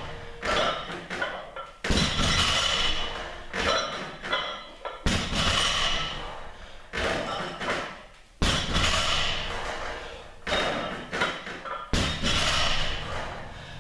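A 135 lb plate-loaded barbell coming back down onto the floor between one-arm high pull reps: four heavy thumps about three seconds apart, each trailing off in a rattle of the metal plates, with lighter knocks between them.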